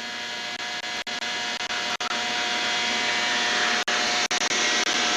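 A steady whirring hiss with a faint humming tone, broken by several very brief dropouts.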